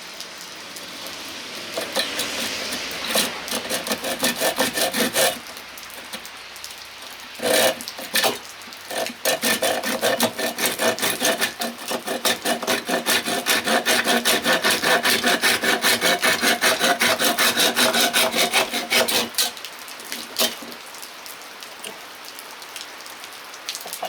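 A saw cutting through the end of a wooden axe handle, in rapid back-and-forth strokes. It comes in a few runs, with a pause about five seconds in, a long steady run from about nine seconds in, and stops near nineteen seconds.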